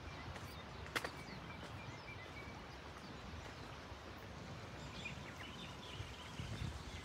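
Outdoor ambience: a steady low rumble with scattered faint bird chirps, and one sharp click about a second in.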